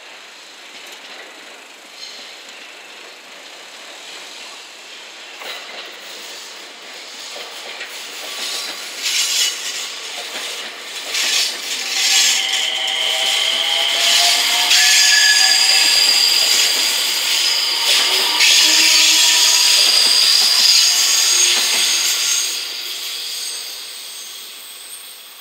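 JR West 227 series 'Red Wing' electric multiple unit pulling out of the station and passing close by, its wheels squealing high and steady on curved track and clacking over points and rail joints. It grows loud about halfway through as the cars go past, then fades near the end.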